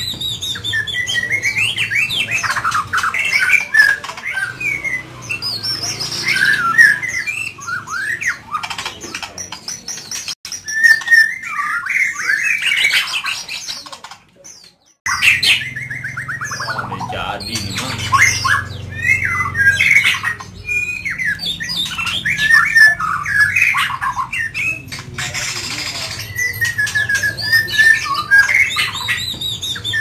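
White-rumped shama (Medan murai batu) in a cage singing at full volume: a long, varied run of whistled phrases that glide up and down, with a short break about halfway through.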